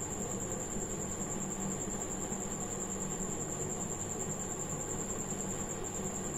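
Steady background hum and hiss with a constant faint high whine, unchanging throughout.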